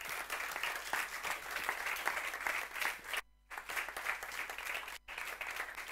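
Audience applauding, a dense patter of many hands clapping that drops out briefly twice and stops suddenly at the end.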